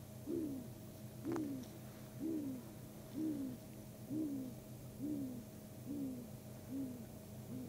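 Great grey owl hooting a series of nine deep hoots, about one a second, each rising slightly then falling in pitch, coming a little faster and fading toward the end. This is the species' territorial song. A faint click sounds about a second in, over a steady low hum.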